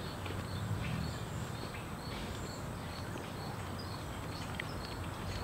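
An insect chirping steadily, short high chirps at about four a second, over a low outdoor rumble.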